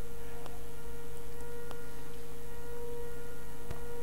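Steady electrical hum: one constant tone over a lower drone, at an even level. A few faint clicks.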